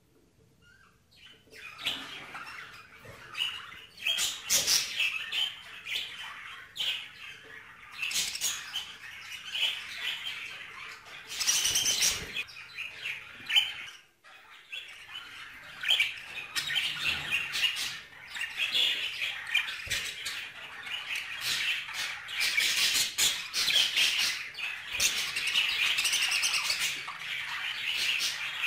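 A flock of caged budgerigars chattering and chirping continuously, with frequent sharp squawks.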